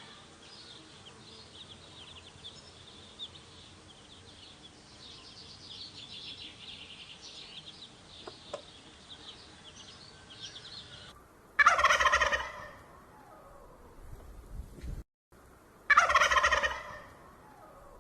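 A bird calling loudly twice, each call about a second long with a rapid rattling quality, after several seconds of faint, high chirping.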